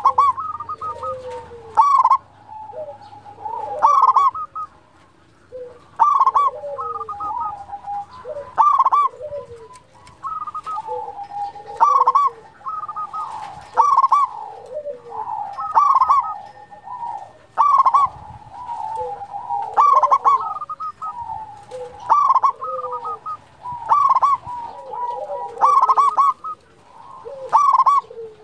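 Zebra dove (perkutut) cooing repeatedly: a loud, clipped phrase of notes about every two seconds, with softer cooing notes in between.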